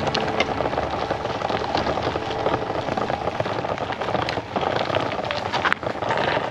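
Bicycle tyres rolling over a gravel path: a steady crackling, crunching noise with many small clicks of stones.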